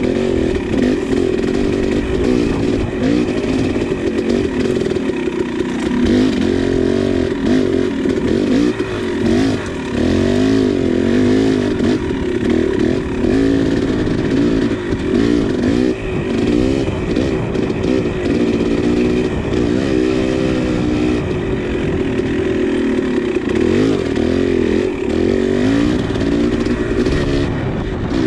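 KTM 300XC two-stroke dirt bike engine under way, its pitch rising and falling every second or two as the throttle is worked, with scattered knocks and rattles.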